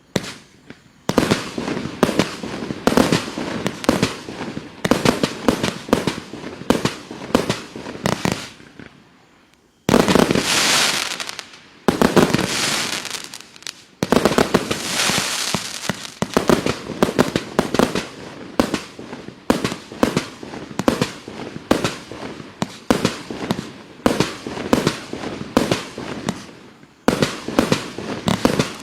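Klasek Show 256 30 mm compound firework cake firing a rapid barrage of shots and bursts. There is a brief lull just before 10 seconds in, then three louder bursts about two seconds apart, each trailing off over a second or two, before the rapid shots resume.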